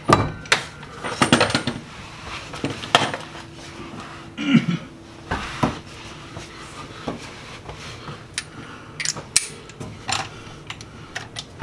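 Steel hand tools and sockets clinking and knocking against metal at irregular intervals as a wrench is worked on a bolt of a rear differential under a car.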